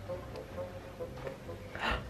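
Faint background music with thin steady notes. Near the end there is one brief noise as the fridge door is pulled open.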